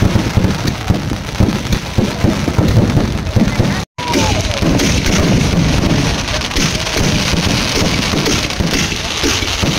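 Firecrackers going off in a dense, continuous crackle, cut by a brief dropout about four seconds in.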